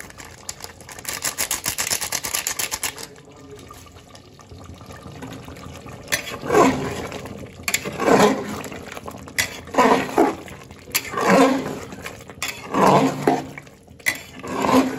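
A ladle stirring thick mutton curry in an aluminium pressure cooker, scraping and squelching against the pot in strokes about every one and a half seconds through the second half. For the first three seconds there is a fast, fine rattle.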